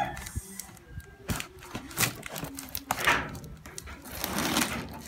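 Packing tape on a cardboard box being slit and pried open with a screwdriver: scattered sharp ticks and scrapes, with a longer rasp of tearing tape about three seconds in and another near the end.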